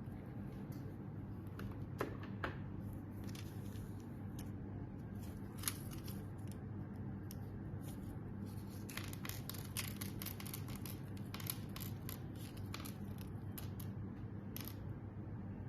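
Steady low electrical hum, with scattered small clicks and ticks that come thickest in the second half.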